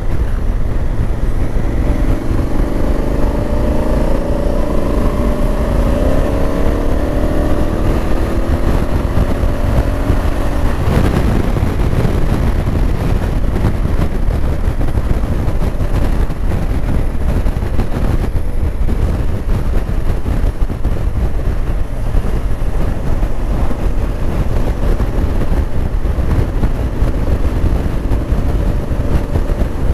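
Honda Africa Twin's twin-cylinder engine pulling under way, its note rising slowly for about the first ten seconds. After that, heavy wind rush and road noise on the microphone cover it.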